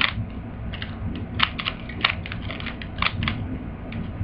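Plastic twisty puzzle (Rubik's-type cube) being turned by hand, its layers clicking as they snap into place in a quick, irregular run of clicks, a few a second; the puzzle, which the solver thinks is not lubricated, turns with a dry clatter.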